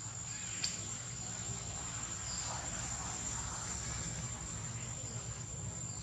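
Insects in the forest giving a steady, unbroken high-pitched drone. A short click sounds about half a second in.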